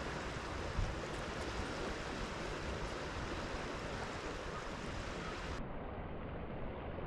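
Sea washing against a rocky shore, with wind on the microphone: a steady, even rushing noise, with one brief low thump less than a second in.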